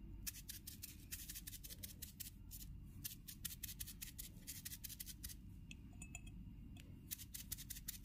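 Foam sponge dabbing paint onto a glass bottle: faint, quick crisp pats in rapid runs with short pauses.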